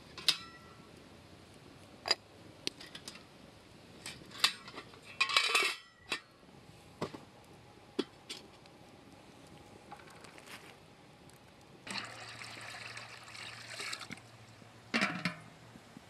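Enamel teapot and metal kettle clinking and knocking as they are handled and the teapot is set on top of the kettle, with sharp clinks every second or two. Short rushes of liquid-like noise come about five seconds in and again for a couple of seconds near the end.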